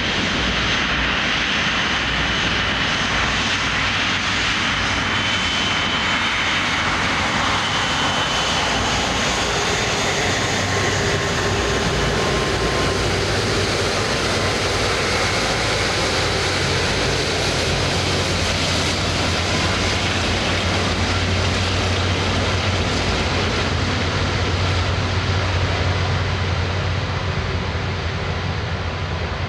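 Airbus A330-200's Rolls-Royce Trent 700 jet engines running as the airliner rolls past on the ground: a steady rush of engine noise with high whines that fade out after the first ten seconds or so, while a low hum grows stronger.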